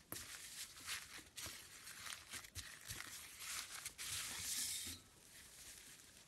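Foam slime being squeezed and pressed, crackling with many small crunchy pops and clicks; the crackling is densest and loudest about four seconds in, then drops to a softer crackle.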